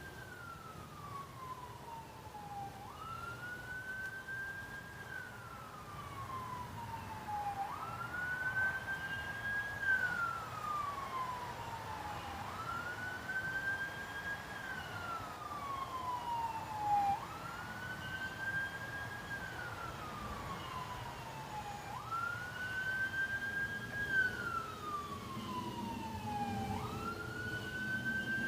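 A siren wailing: each cycle rises quickly, holds briefly and then slides slowly back down, repeating about every five seconds, over a low rumble.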